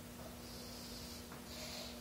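Pencil scratching on plywood while marking out lines: two faint strokes, a longer one from about half a second in and a short one near the end.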